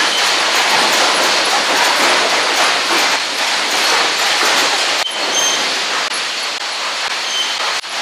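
Loud, steady sawmill machinery din: lumber conveyors with chains and boards clattering and rattling, with a brief break about five seconds in.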